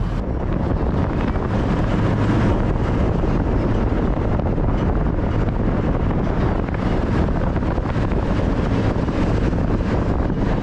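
Steady wind noise on the microphone aboard a moving Hydra-Terra amphibious tour vehicle, over the constant running sound of the vehicle driving on the road.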